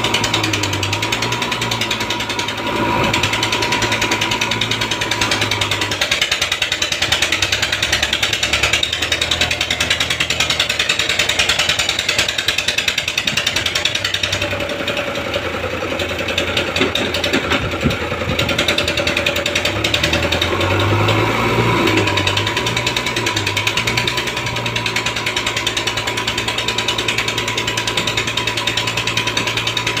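JCB 3DX backhoe loader's diesel engine running under load with a rattling clatter and a steady whine, as the front loader bucket pushes into a sand pile. The engine note shifts about halfway through, then settles back.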